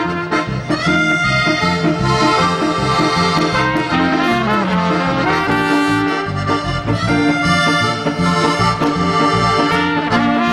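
Piano accordion playing a lively folk melody over a full band with brass, with falling runs in the lower part every few seconds. Near the end a trumpet comes to the fore.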